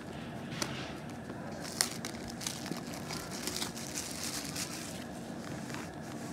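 Thin plastic shrink-wrap being picked at, peeled and crumpled off a smartphone box, crackling and crinkling throughout, with a sharp click about two seconds in.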